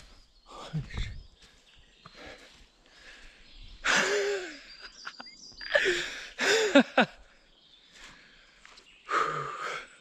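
A man letting out loud, breathy cries without words: one about four seconds in, three close together around six to seven seconds, and a last one near the end, the pitch of several falling away.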